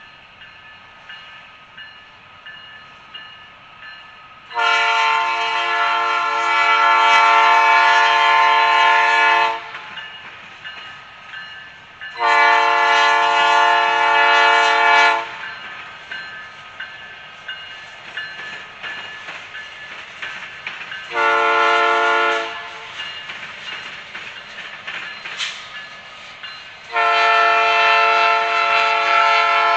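Locomotive's Nathan K5 five-chime air horn sounding the grade-crossing signal: two long blasts, one short blast, then a final long blast starting near the end. Quieter train noise is heard between the blasts.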